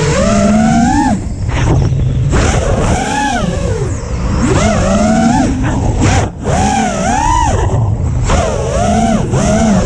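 Onboard sound of a 5-inch FPV freestyle quadcopter: BrotherHobby 2206 2450kv motors spinning Gemfan Flash 5-inch props, whining up and down in pitch as the throttle is worked, with a few short drops where the throttle is chopped. Air rushes over the camera mounted on the quad.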